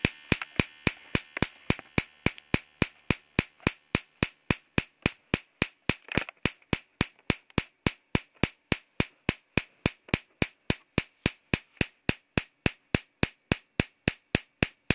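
A home-built 50,000-volt Marx generator firing over and over, each discharge a sharp spark crack across the gap between two screw electrodes, about four cracks a second at an even rate.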